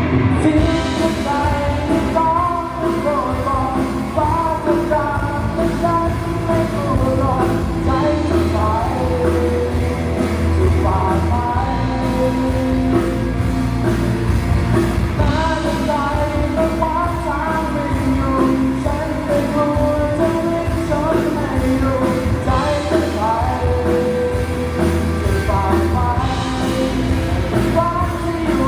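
Rock-style pop song with a sung vocal melody over bass and drums, played loud through a stage sound system during a sound check.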